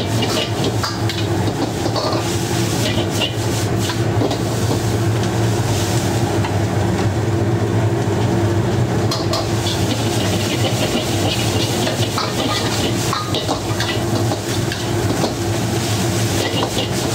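Rice noodles being stir-fried in a wok over a gas burner: a steady rumbling flame noise under scattered scrapes and clinks of the metal ladle against the wok, with sizzling.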